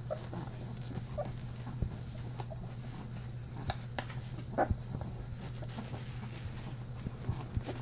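Newborn Newfoundland puppies nursing, giving several short, faint whimpers and squeaks among small clicks, over a steady low hum.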